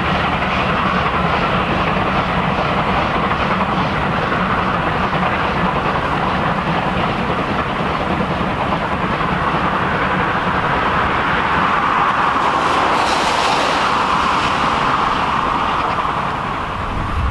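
Steam train running past on the line: a steady rumble and clatter of the wheels on the rails, easing off slightly near the end.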